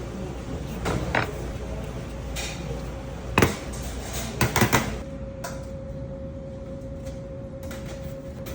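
Light knocks and clicks of utensils and tools being handled on a work surface: a couple of taps about a second in, a sharper knock about three and a half seconds in, then three quick taps, over a steady faint hum.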